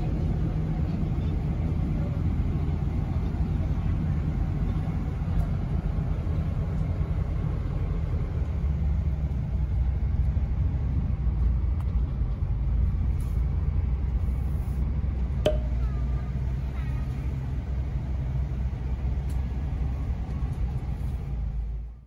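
Road and engine noise inside a moving vehicle: a steady low rumble, with one sharp click about two-thirds of the way through.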